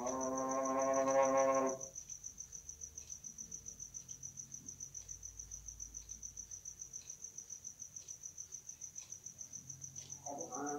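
A man's voice chanting the tarhim, the Islamic praise sung before the dawn call to prayer, holds one long note that stops about two seconds in. Crickets then chirp in a steady, fast pulsing trill, and the chant starts again just before the end.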